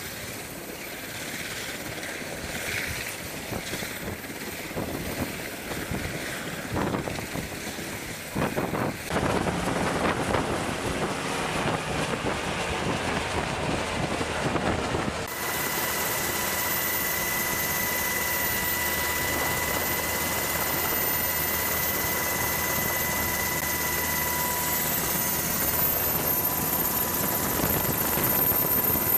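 MH-60R Sea Hawk helicopter's rotor and turbine noise, first heard from outside as it hovers and flies off. About halfway through it gives way to the steadier noise inside its cockpit, with a high steady whine running through it.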